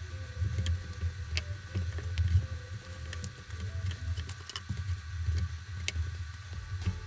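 Small parts of a disassembled Nokia 3220 phone being handled on the bench: scattered light clicks and taps over a low rumble.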